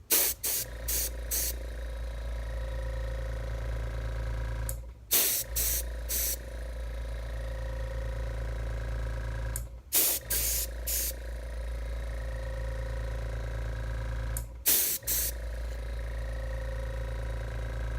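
Paint spray gun spraying a gun coating onto a revolver frame: a steady motor hum throughout, with clusters of short spray hisses about every five seconds.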